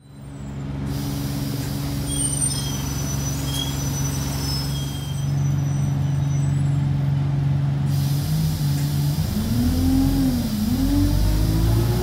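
Alexander Dennis Enviro 200 single-deck bus heard from inside: the diesel engine idles steadily, then the bus pulls away about eight seconds in. As it pulls away there is a weird whine that rises, dips and rises again.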